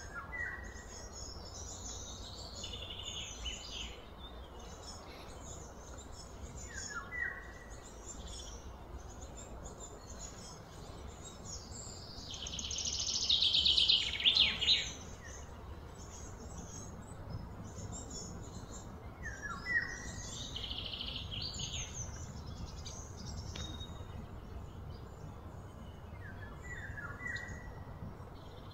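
Birds chirping and calling outdoors, one short high call repeating about every seven seconds over a steady low background hum. About midway a louder buzzing trill builds for around three seconds and stops abruptly.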